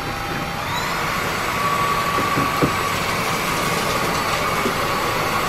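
Aposen H250 cordless stick vacuum running, its motor whine rising in pitch about half a second in and then holding steady, with a few light clicks around two seconds in.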